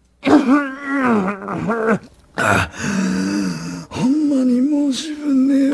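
A man groaning in pain in long, wavering moans, broken by a harsh gasping breath about two and a half seconds in: the groans of a gravely ill man.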